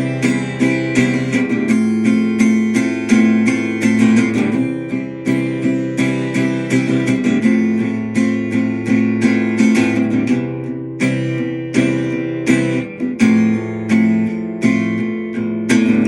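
Acoustic guitar strummed in a steady rhythm, its chords ringing with no voice over them: an instrumental passage closing a song.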